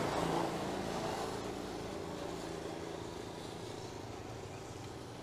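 A passing motor vehicle's engine hum fading gradually into the distance.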